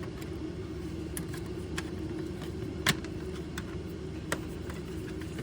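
Plastic parts of a toy dart blaster clicking and knocking as they are handled and fitted together: a handful of sharp separate clicks, the loudest about three seconds in, over a steady low background hum.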